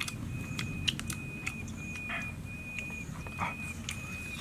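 An animal call in the background: a high note of steady pitch, repeated in half-second pieces with short gaps. Scattered small clicks and crackles come from the fish being picked apart by hand.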